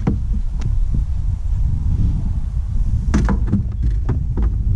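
Wind buffeting the microphone: a constant low rumble. A few sharp clicks and knocks sit on top, a cluster of them about three seconds in.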